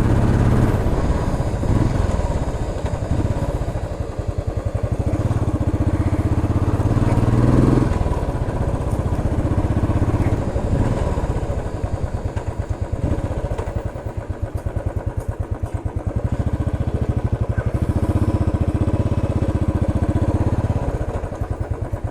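Royal Enfield Classic 350 Stealth Black's single-cylinder engine running through its stock silencer while being ridden: a steady low exhaust thump that swells and eases off several times.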